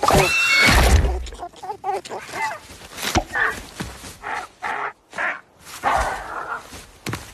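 Cartoon animal cries: a loud screech over a low rumble in the first second, then a string of short squawks and yelps.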